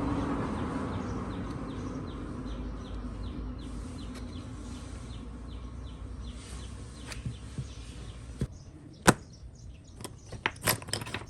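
Steady hum with a faint regular ticking about twice a second, which stops about eight and a half seconds in. Then a series of sharp clicks and taps, the loudest about nine seconds in, like small tools and parts being handled on a workbench.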